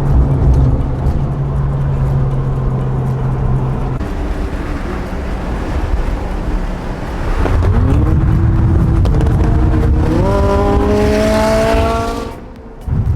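Sports car engine running with a steady drone, then accelerating hard: its pitch climbs, steps at a gear change, and climbs again before cutting off suddenly near the end.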